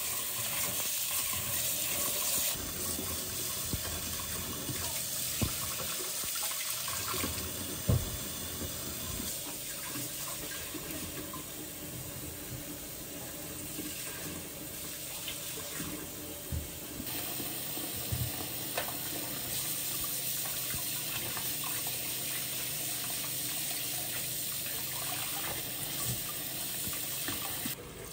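Kitchen tap running steadily into a stainless steel sink as vegetables are rinsed under the stream by hand, with a few light knocks along the way.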